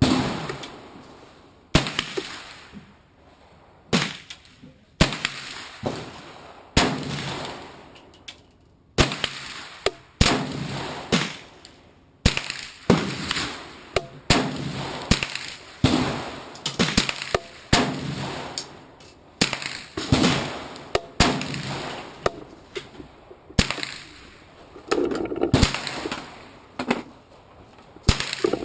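Rifle in 300 AAC Blackout, shot suppressed, firing a steady string of single shots about one to two seconds apart, each a sharp crack that dies away in an echo.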